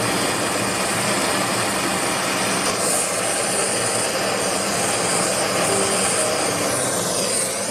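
Gas torch flame burning with a steady hiss, heating a brass cylinder assembly red-hot for soldering.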